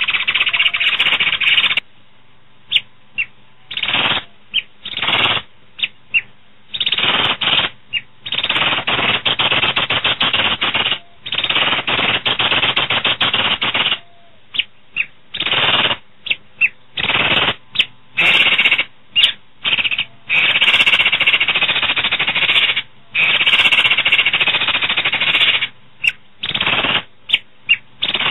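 Pied starling (jalak suren) singing: loud bursts of rapid rattling chatter lasting one to three seconds, broken by short sharp calls.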